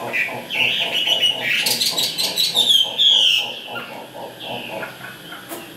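Chinese hwameis fighting: a rapid, harsh, rhythmic chatter, with loud whistled calls sliding down in pitch between about one and a half and three and a half seconds in.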